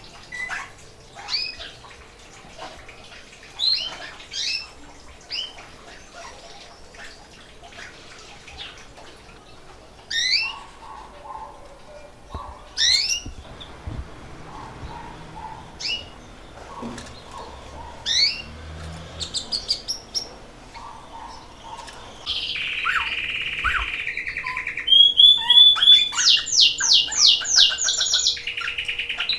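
Pet canaries calling with short, scattered rising chirps; about two-thirds of the way in, one breaks into louder continuous song with fast rolling trills. This is the singing of birds coming into breeding condition.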